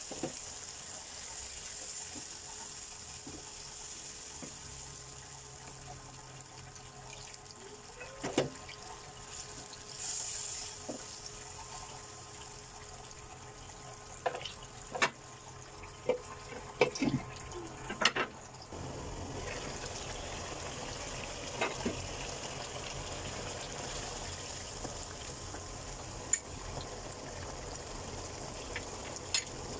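Kofta curry simmering in a nonstick wok, a steady bubbling hiss, with scattered knocks and scrapes of a wooden spatula against the pan, most of them about halfway through.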